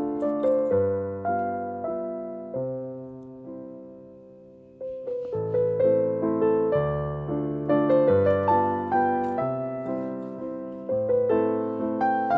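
Background piano music: a gentle melody of single struck notes. It fades away about four seconds in and starts again abruptly about a second later.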